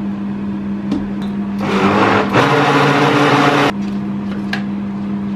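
Countertop blender motor running for about two seconds, blending vegetable oil into banana batter, with a steady low hum underneath.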